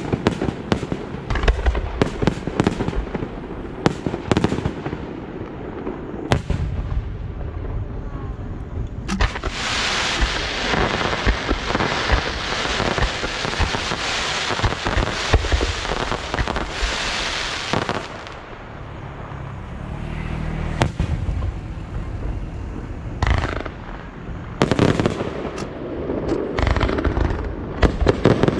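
Fireworks show: a string of sharp bangs as aerial shells burst. Through the middle stretch, about a third to two-thirds of the way in, they give way to a dense, rapid crackling before separate bangs return near the end.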